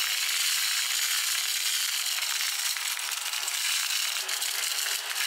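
Small battery-powered mini desk vacuum running steadily, a hiss over a faint steady motor hum, as it is pushed over a countertop sucking up crumbs. Faint crackles come in from about three seconds in.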